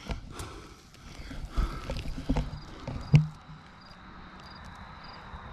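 Camping gear being handled and set down: a few scattered knocks and clunks, the loudest about three seconds in, then quiet handling.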